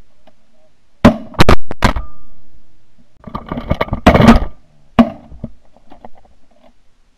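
Franchi Affinity 12-gauge shotgun firing: three quick shots about a second in, each trailing off, then two more shots around four and five seconds in.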